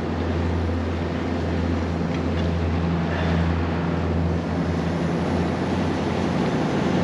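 Car ferry's engines droning steadily with a constant low hum, over the rush of water churning along the hull in its wake.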